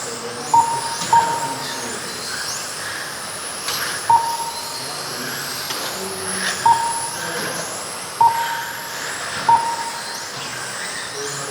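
Radio-controlled race cars lapping a track, their motors giving a high whine that rises and falls as they pass. Short identical beeps come at irregular intervals, about seven in all, typical of a lap-counting system sounding as each car crosses the timing line.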